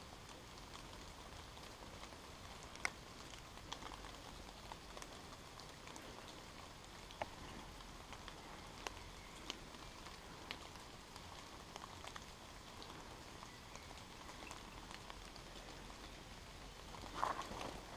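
Water drops pattering steadily on wet woodland foliage, with scattered sharp ticks of single drops. A brief louder noise comes near the end.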